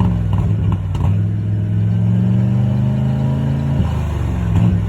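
Ford 302 V8 in a 1995 F-150 running with a bad alternator. Its pitch creeps slightly up, then drops back about four seconds in.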